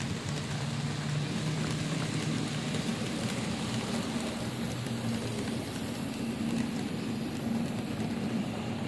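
N-scale model diesel locomotive, a DR V 100, running past with passenger coaches: a steady electric-motor hum that shifts a little in pitch, over the rolling noise of the wheels on the track.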